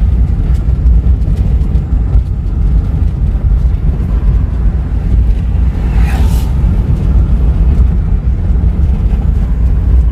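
Steady low rumble of a moving vehicle: road and wind noise. A brief hiss rises over it about six seconds in.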